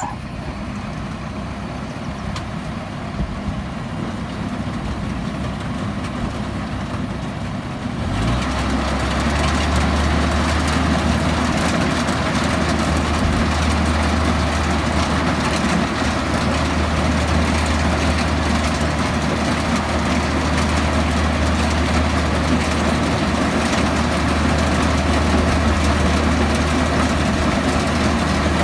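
Old Kubota rice harvester's engine running. About eight seconds in it speeds up with a short rise in pitch, then runs steadily and louder.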